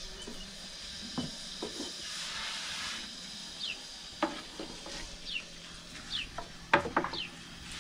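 Wooden rolling pins knocking and tapping against round wooden boards as thin flatbread dough is rolled out, the sharpest pair of knocks near the end, over a steady hiss.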